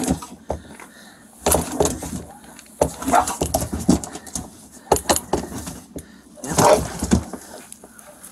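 Feral dog barking in several short bursts, among knocks of a metal catch pole.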